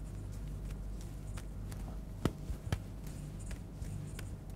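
Three-ball juggling: the balls land in the hands as irregular soft pats and taps, the two loudest a little over two seconds in, over a low steady hum.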